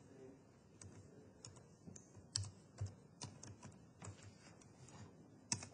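Faint computer keyboard typing: a dozen or so separate, irregular keystrokes, the loudest near the end.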